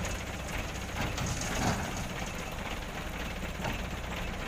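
Diesel dump truck engine running at idle, a steady low rumble with a fast, even pulse.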